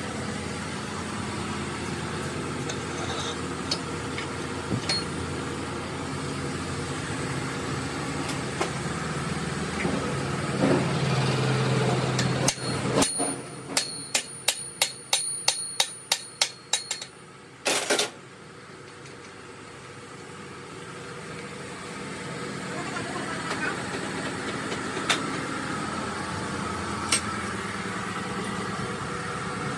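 A run of about a dozen sharp hammer blows on steel, two or three a second, each with a ringing note, as a bearing-fitted shaft is driven into a tractor gearbox housing. Under it runs a steady workshop hum.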